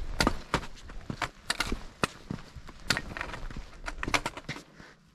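Hiker's footsteps on a trail: sharp, irregular steps, about two or three a second, dying away near the end.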